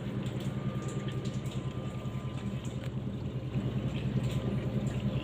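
An engine running at a steady idle: a low, evenly pulsing drone with a faint steady whine above it.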